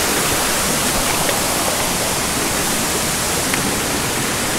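Steady rush of a shallow, rocky mountain stream running over stones.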